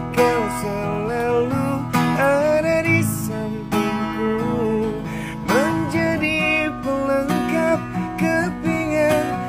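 Acoustic guitar strummed under a man's singing voice carrying the melody of a love ballad.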